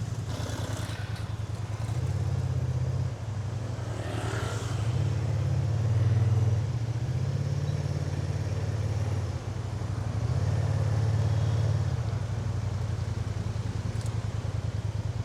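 Kymco AK550 maxiscooter's parallel-twin engine running under way, swelling and easing several times with the throttle.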